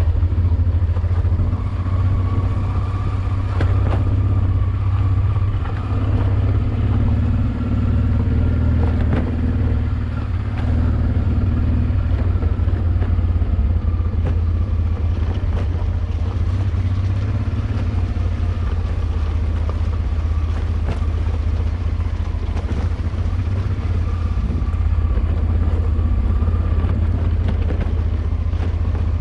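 Honda Transalp XL600V's V-twin engine running steadily under way, a continuous low rumble with light scattered clatter over the rough track.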